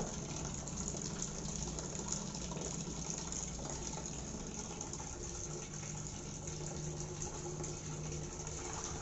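Tap water running and splashing steadily into a plastic basin of leafy greens as they are rinsed by hand, spilling over the rim onto the floor.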